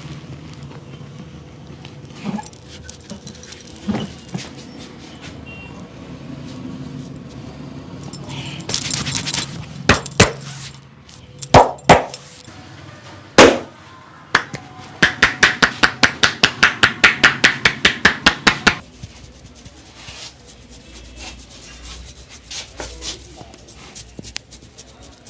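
Hand massage strokes: a few sharp single slaps, then, about fifteen seconds in, a fast even run of about two dozen palm strikes, some seven a second, lasting a little under four seconds, as in a barber's percussive head massage.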